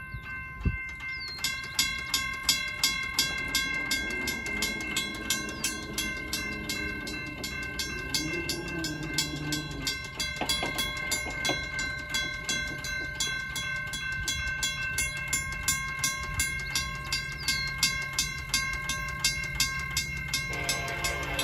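Railroad crossing bells ringing: a WCH mechanical bell and a General Signals Type 2 electronic bell strike about twice a second, with a steady electronic ring under the strikes. Near the end the ringing tone stops and the approaching coal train's locomotive horn sounds.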